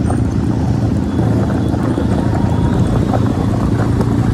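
Motorcycle engine running steadily while riding, an even low rumble.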